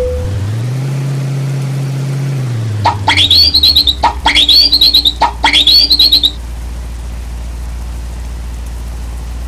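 Electronic whistle horn sounding three times in a row, each call a whistle that sweeps up to a high pitch and warbles there for about a second, over a steady low hum.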